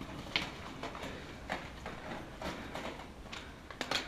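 Slow, irregular footsteps crunching and scuffing on a concrete floor strewn with gravel and rubble: a short crunch every half second to second.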